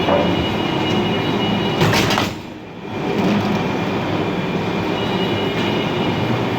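Automatic krupuk (cracker) making machine running with a steady mechanical rattle and clatter. There is a brief louder clatter about two seconds in, then the sound dips for about half a second before it picks back up.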